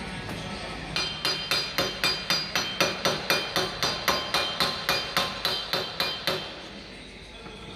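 A hammer striking the steel front brake disc of a Ford Transit Custom, about four blows a second, each with a bright metallic ring. The blows start about a second in and stop after roughly five seconds.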